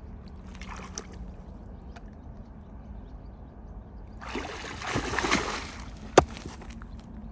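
A large rock being lifted out of shallow lake water: about two seconds of splashing and water pouring off it, then a single sharp knock. Before that, only faint sloshing of water around the legs.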